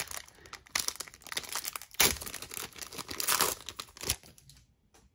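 Foil wrapper of a 2020 Topps Inception baseball card pack crinkling in the hands and being torn open, with a sharp rip about two seconds in. The crackling fades toward the end.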